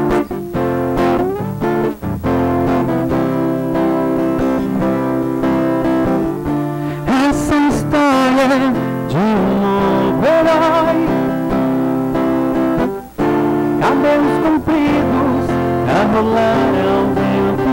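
Steel-string acoustic guitar strummed in a steady chord rhythm while a voice sings a slow song over it. The singing is clearest from about seven seconds in.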